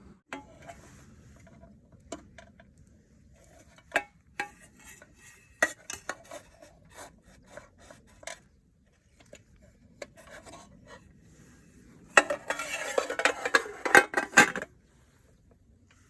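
Cutlery clinking and tapping against a dish in scattered strokes, then a burst of continuous scraping about twelve seconds in, lasting two to three seconds.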